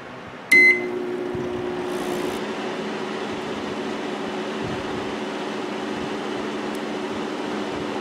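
A single short keypad beep about half a second in, then a Whirlpool microwave oven with its cover off starts and runs empty with a steady hum. It runs without blowing the fuse now that the faulty high-voltage capacitor has been replaced.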